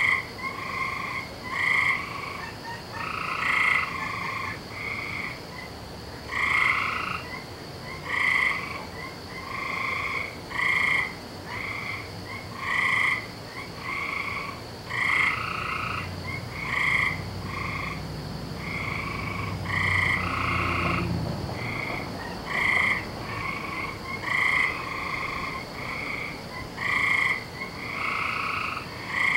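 A chorus of frogs croaking. Several frogs give short calls, about one a second, overlapping one another.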